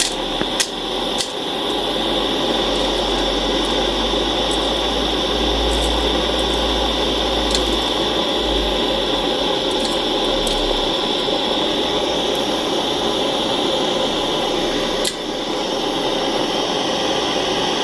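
Small soldering torch flame hissing steadily during silver soldering of a metal eyeglass frame, with a few faint clicks.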